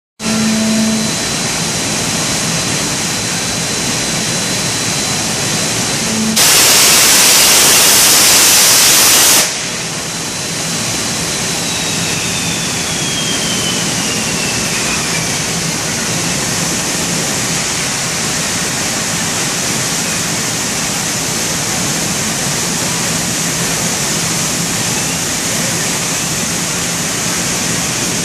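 Steady loud machine noise from a robot-tended CNC lathe cell on a factory floor. About six seconds in, a loud hiss runs for about three seconds. A few seconds later a faint high whine falls in pitch.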